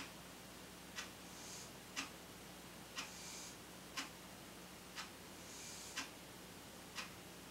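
Clock ticking steadily, one sharp tick each second, with a faint soft hiss between some of the ticks.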